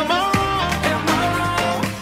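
Music playing: a song with a bending melody line over a steady bass.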